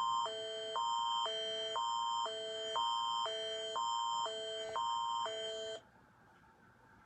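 Canadian Alert Ready attention signal: two electronic chords alternating about every half second over a steady high tone, cutting off abruptly about six seconds in.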